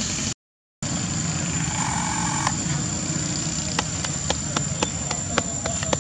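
Steady outdoor background with a low engine-like rumble and a constant high whine above it. The sound drops out completely for half a second near the start. From about four seconds on, a quick irregular run of sharp clicks is heard.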